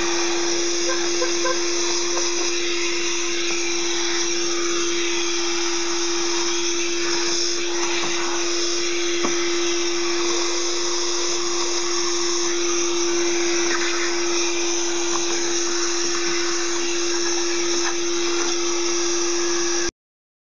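Vacuum cleaner running steadily through a 3D-printed hose adapter on a 25 mm corrugated tube, sucking up milling dust and debris, with a constant hum. It cuts off abruptly near the end.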